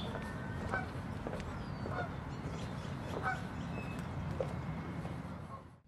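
Park ambience: a steady low rumble with short honking bird calls, about one a second, and a few higher chirps. The sound drops away suddenly just before the end.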